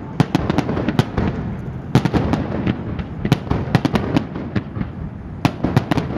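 Fireworks going off: clusters of sharp bangs, several a second, over a continuous low rumble, with a short lull a little before a last cluster near the end.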